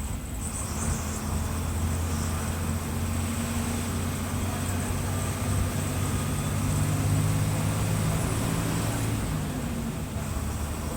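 Mercedes-Benz OF-1721 bus's six-cylinder turbo diesel engine running, a steady low drone that strengthens for a few seconds in the middle and eases back near the end.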